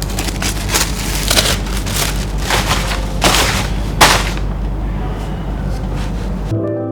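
Loud crackling and rustling noise with sharp crackles, over soft background music; the noise cuts off abruptly near the end, leaving only the music.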